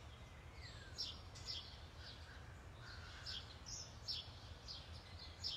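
Songbirds chirping faintly, short high notes about twice a second, over a low steady rumble.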